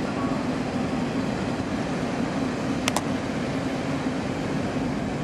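Steady low machinery hum from moored warships, the drone of shipboard generators and ventilation running. Two short clicks come about three seconds in.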